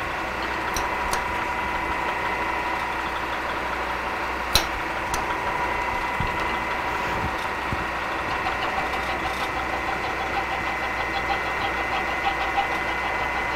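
Milling machine spindle running at about 150 RPM while an undersized end mill plunges into a stainless steel hammer head to cut the handle's counterbore: a steady hum with a whine over it. One sharp click about four and a half seconds in.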